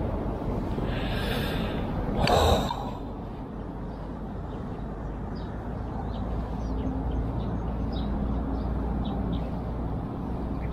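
Steady low outdoor rush with a short breathy burst about two seconds in. From about halfway on, small birds call repeatedly in quick, high chirps that dip in pitch.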